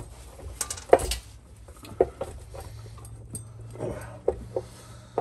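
Scattered metal clunks and clicks as the bell housing and broken Powerglide transmission parts are handled and worked loose from under the truck, the loudest about a second in, over a low steady hum.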